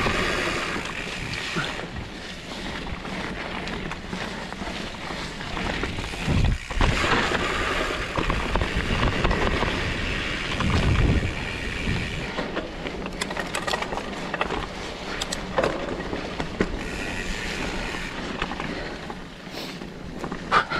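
Trek Farley fat bike ridden over a wet dirt trail: fat tyres rolling and the bike rattling and clicking over bumps, with wind on the microphone.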